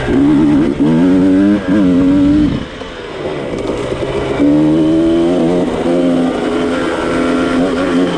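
Dirt bike engine being ridden hard: a few short pulls on the throttle, each climbing in pitch with brief breaks between them, then about two seconds of easing off, then held on at a steadier, higher pitch.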